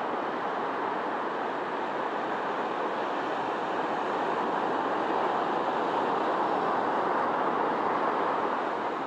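Sea surf washing onto a beach: a steady rushing noise that swells about halfway through and eases off near the end.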